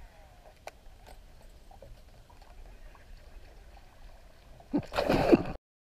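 Faint open-water ambience with a few small ticks, then near the end a sudden loud splash lasting under a second that cuts off abruptly: a giant snakehead striking at a topwater lure.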